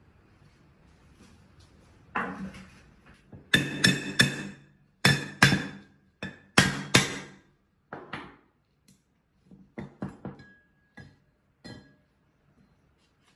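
Claw hammer striking the rusty steel reservoir shell of an old hydraulic bottle jack to knock it loose: a run of sharp metallic blows with a short ring, heaviest about three to seven seconds in. Lighter knocks and clinks follow as the shell comes free of the base.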